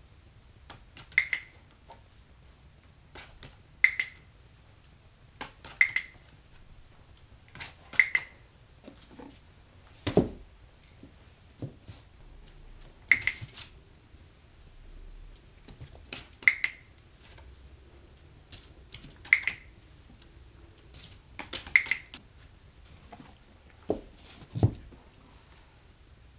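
Handheld dog-training clicker clicking about eight times, every two to three seconds, some as a quick double click, marking the rat terrier's hind feet on the stack of books in handstand training. A couple of dull thumps come in between.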